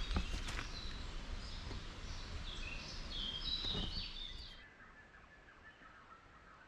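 Birds chirping over a steady rushing background noise in a forest. About four and a half seconds in the rushing drops away, leaving only faint bird calls.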